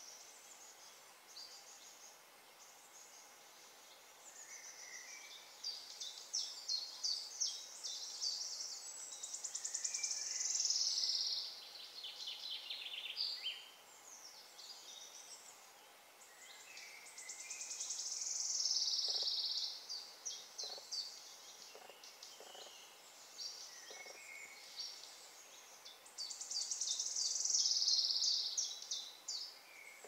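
Woodland birds singing in a chorus of chirps and song phrases. One bird's fast trilled song stands out, repeated three times about eight seconds apart, each phrase building up and sliding down in pitch.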